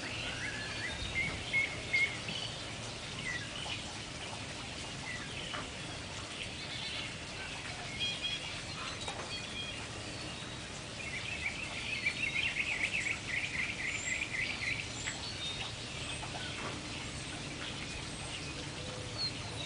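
Songbirds chirping and calling over steady low background noise, with a fast trilled song at about the middle lasting around four seconds.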